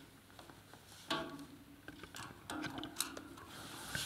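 Flat-head screwdriver prying at a brass compression olive on a copper pipe, giving a few faint, irregular metallic clicks and scrapes as the olive is split open along its sawn cut.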